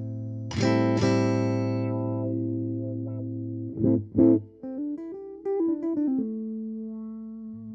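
1978 Alembic Series II played through its battery-powered onboard electronics. A low note rings and is plucked hard twice, about half a second and a second in. Two sharp hits come around four seconds in, then a quick run of notes settles on a held note that slowly fades.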